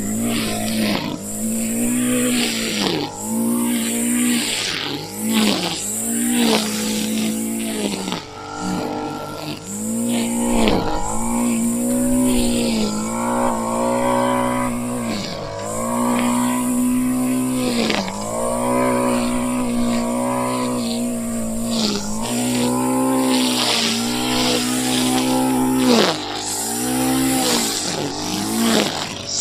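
Brand-new Honda four-stroke line trimmer (whipper) running and being revved over and over. Each burst rises to a high, steady whine, is held for a second or two, then drops back: the engine has started and is working.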